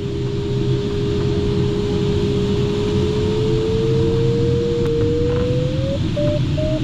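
Ventus cT glider cockpit: steady rushing airflow noise. Over it the electronic variometer's single tone rises slowly in pitch and near the end breaks into short, evenly spaced beeps, the vario signalling that the glider has flown into lift.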